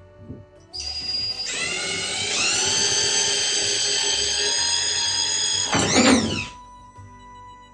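DeWalt cordless drill/driver driving a mounting screw through a grab bar flange into the fiberglass shower wall: the motor whine climbs in pitch as it spins up, holds steady for about four seconds, then gives a short loud surge and stops.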